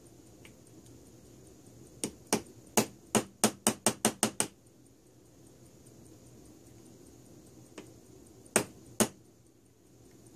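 Small chisel punch being struck against the worn steel hook on a clock barrel arbor held in a vise, to raise the hook's flattened edge. About two seconds in comes a run of about ten sharp metallic taps, quickening as it goes, and then two more taps near the end.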